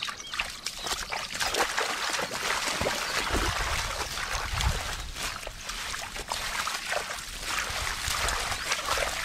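Shallow muddy water splashing and sloshing as a person wades through it and rummages by hand among water hyacinth.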